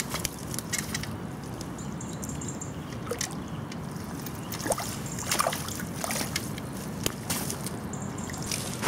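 Water splashing and sloshing in short bursts as a small chub is played to the bank on a rod and line, over the steady flow of the river.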